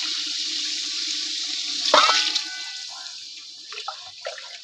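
Water poured from a steel bowl into a large aluminium pot of fried chicken masala, a steady gushing pour. About two seconds in there is a sharp clink, after which the pour tails off into scattered splashes and drips.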